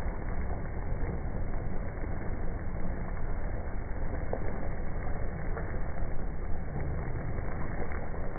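Steady low rumble and sizzle of a pot of chicken curry cooking over the flame, with a couple of faint ladle ticks.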